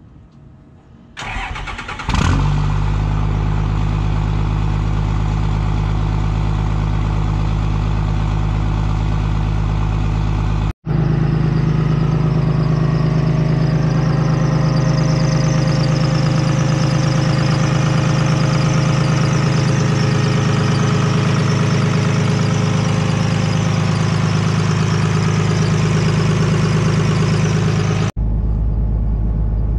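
A 12-valve Cummins diesel engine cranks briefly and fires up about two seconds in, then idles steadily; in the middle part a high hiss rides over the idle. The engine is running cold, with blow-by venting from the tappet cover.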